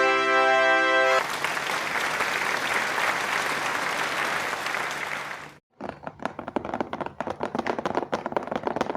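A held musical note for about a second, then applause that cuts out briefly past the middle and comes back as scattered clapping.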